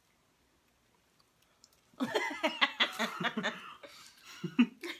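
About two seconds of near silence, then two people laughing, with the crinkle of a foil candy wrapper being handled.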